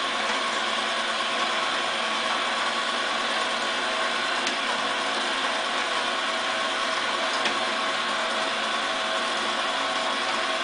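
Small electric motor and plastic gears of a battery-operated rotating toy fishing game, whirring steadily as the pond of fish turns.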